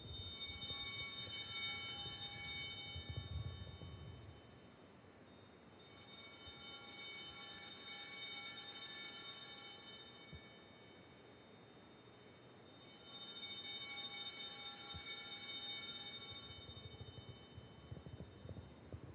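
Altar bells (Sanctus bells) rung three times. Each ring is a cluster of high bell tones that holds for about four seconds and then fades. This is the ringing that marks the elevation of the consecrated chalice at Mass.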